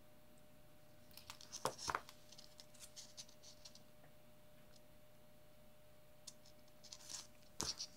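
Small white two-pin plastic wire connectors being handled and pushed together: a few faint clicks and scratches about a second and a half in, and again near the end, over a faint steady hum.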